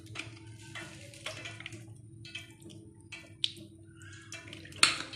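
Vinegar splashing and dripping from a glass bottle onto raw chicken pieces on a plate, in irregular small splashes over a steady low hum, with a sharp click near the end.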